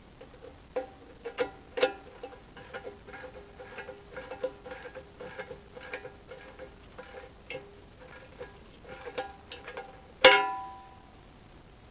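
Steel hand tools working on the excavator's bucket-pin nuts: an irregular run of ringing metallic clinks from the wrench and socket. A single much louder clank with a long ring near the end.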